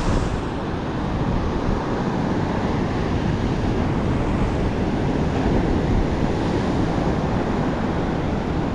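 Heavy ocean surf breaking on a beach, a steady wash of noise, with wind rumbling on the microphone.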